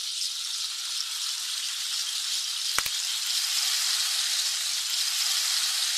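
A steady, high hiss with one sharp click about three seconds in.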